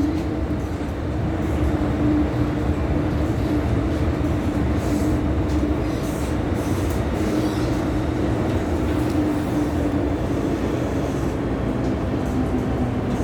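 Inside an MTR M-train car on the move: a steady rumble of wheels on track, with a traction motor tone holding a near-constant pitch.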